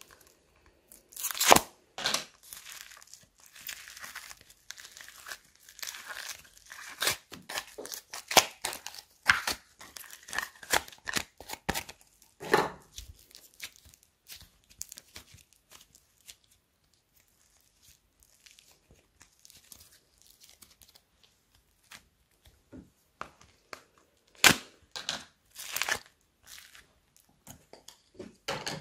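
Old, hardened slime crackling and crunching as it is squeezed and torn apart by hand: clusters of sharp crackles, with a quieter stretch in the middle.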